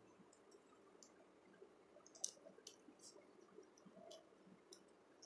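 Near silence with faint, scattered small clicks and ticks, about half a dozen from two seconds in, as a short piece of wire is handled and fitted into a terminal of a DOL starter's control wiring.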